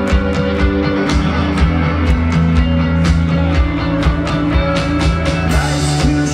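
Indie rock band playing live: electric guitar over bass and a steady drum beat, in a passage with no singing.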